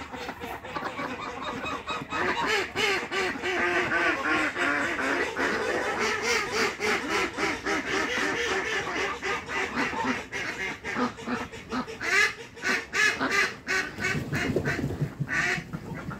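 A flock of domestic ducks quacking: many short quacks overlapping in quick succession, busiest through the middle, with a lower-pitched run of calls near the end.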